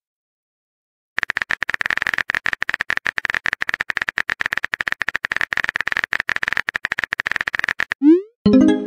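Simulated phone-keyboard typing clicks from a texting-story app, rapid and even, starting about a second in and running for about seven seconds. Near the end comes a short rising whoosh and a brief chime as the typed message is sent.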